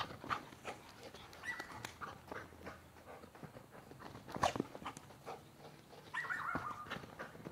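Standard Schnauzer at play, giving a short high whine about a second and a half in and a longer one near the end, over quick scuffing steps on loose soil.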